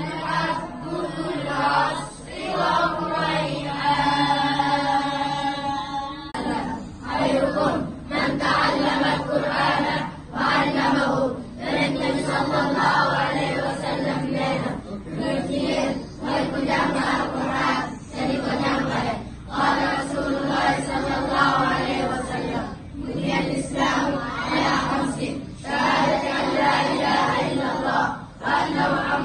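A large group of children chanting together in unison, in phrases separated by short pauses.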